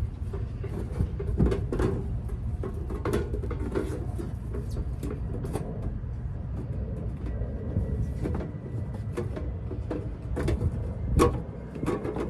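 Scattered clicks and knocks of a welder's sheet-metal shell and fittings being handled and worked into place, with a sharper knock about eleven seconds in, over a steady low rumble.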